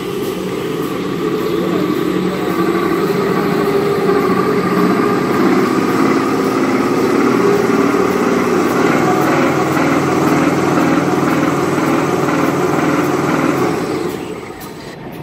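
Kitchen towel converting line running: the steady hum and rattle of the machine's rollers and drives as the paper web feeds through, getting somewhat quieter near the end.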